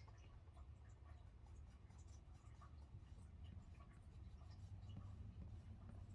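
Faint rubbing of fingertips over drawing paper, smudging and softening blue pencil shading, heard as light scattered scratchy ticks over a steady low hum.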